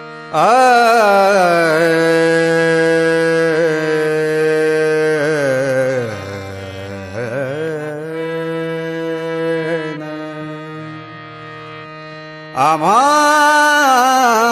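Marathi devotional bhajan music: long sliding melodic phrases over a steady drone, loud in the first six seconds, softer in the middle, then loud again near the end as the opening line begins.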